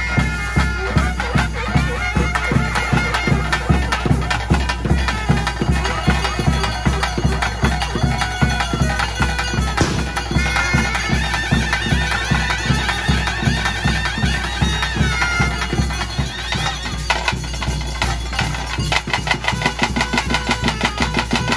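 Traditional ritual band music: a loud, reedy double-reed pipe plays a melody over a steady drum beat, the drumming growing denser near the end.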